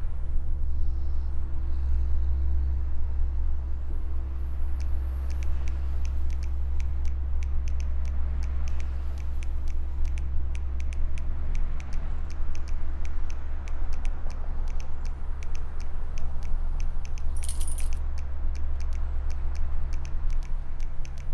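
A steady low rumble with a run of many light, irregular clicks starting about four seconds in, and a brief high hiss about three quarters of the way through.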